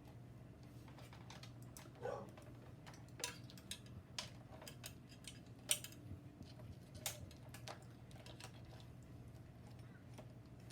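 Faint, irregular small metallic clicks and taps of a Phillips screwdriver and terminal screw as a cable is screwed onto a motorcycle battery terminal.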